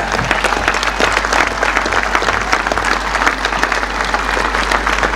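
A large crowd applauding steadily, a dense, even clatter of many hands, over a steady low hum.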